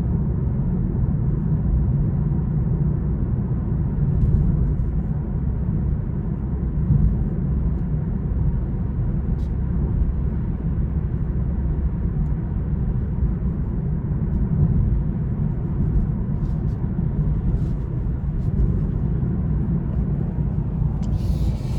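Steady low rumble of road and engine noise from a 2020 BMW M340i xDrive being driven, with its 3.0-litre turbocharged inline-six, at an even level with a few faint clicks.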